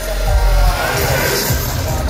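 Electronic dance music from a DJ set played loud over festival speakers, with crowd voices under it. The heavy bass beat thins out here as in a breakdown, with a synth line rising about a second in.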